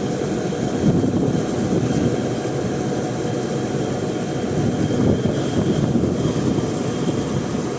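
BlueStar ductable air conditioner's outdoor condensing unit running steadily: compressor and condenser fan giving a constant hum and rush of air, while the system is being charged with R22 refrigerant.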